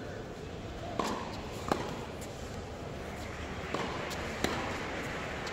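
Tennis ball being struck with racquets in a volley exchange: four sharp pops in two quick pairs, over a murmur of voices in a large hall.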